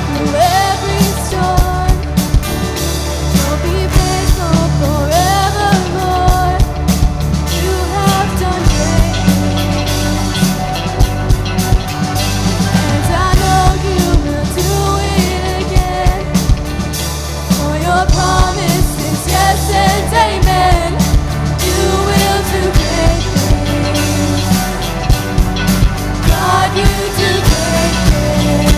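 Worship song played by a band with a drum kit and bass, a voice singing the melody.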